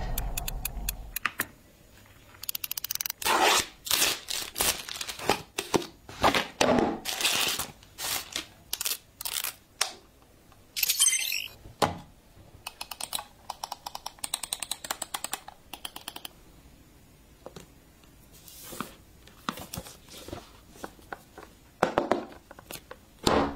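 A series of clicks and taps from handling a gaming keyboard and mouse, with packaging crinkling and tearing in between.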